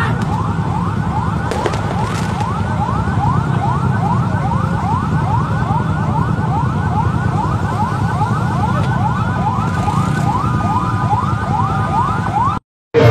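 An electronic siren in a fast yelp, short rising whoops about four a second, over the low rumble of a motorbike convoy's engines. Near the end it switches briefly to a steady two-note tone, and the sound cuts out for a moment just before the end.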